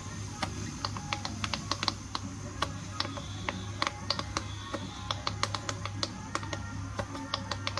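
Irregular rapid clicking and tapping, several clicks a second, over a steady low hum.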